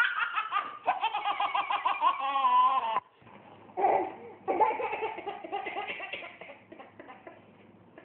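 Babies laughing hysterically in quick, high-pitched bursts of belly laughter, breaking off suddenly about three seconds in, followed by another stretch of giggling laughter that tails away.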